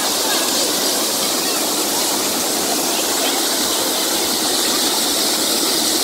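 Lake water pouring over a stone overflow weir into churning white water below: a loud, steady rush.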